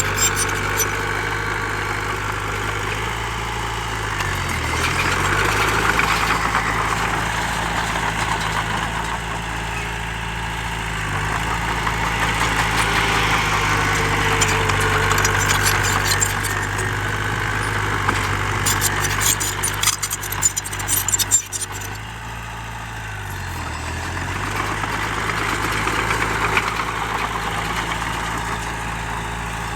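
Heavy diesel engine of earthmoving machinery running steadily, its pitch dipping briefly a few times as the load changes, with a noisy rush over it that swells and fades. A burst of sharp clatter comes about twenty seconds in.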